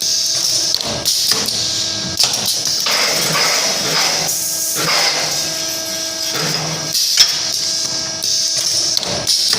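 Automatic galvanized-wire square bending and butt-welding machine running through its cycle: a steady hum under repeated sharp clicks and knocks and stretches of hiss.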